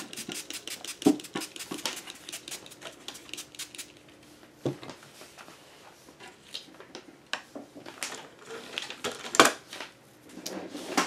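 Small art supplies being handled on a craft table: rapid clicks and clatter of bottles, brushes and tools picked up and set down while rummaging for a round paintbrush, with a few louder knocks.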